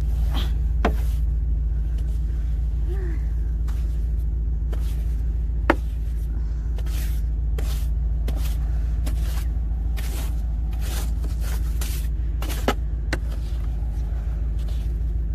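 Truck engine idling with a steady low hum, under short brushing strokes of snow being swept off the truck, with two sharp knocks, about six and thirteen seconds in.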